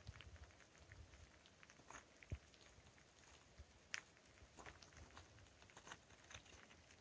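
Near silence: faint outdoor ambience with a low rumble and a few soft clicks and crunches, one low thump about two seconds in and a sharper click near the middle.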